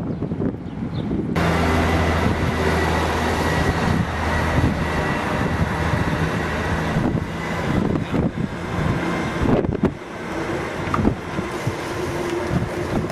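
Class 158 diesel multiple unit running slowly into the platform, its underfloor diesel engines giving a steady drone with a thin high whine. The drone eases off about halfway through, and short knocks follow.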